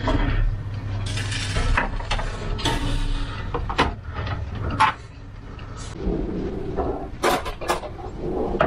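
A glass baking dish is slid out along a metal oven rack and lifted out, with scraping and clinks of glass on metal. Near the end it is set down on the table with a few sharp knocks.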